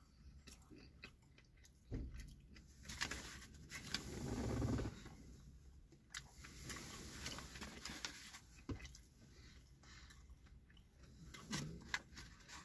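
Quiet chewing of a crispy chicken sandwich, with small clicks and crunches of the mouth at work. About three seconds in, a louder rustle of the paper sandwich bag being handled lasts a couple of seconds.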